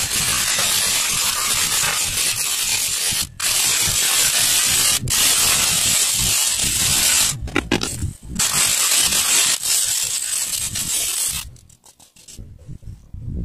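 Small handheld electric mini drill running at high speed as it bores tiny holes through a PVC pipe, with brief stops a few times and a short stutter midway. It stops near the end.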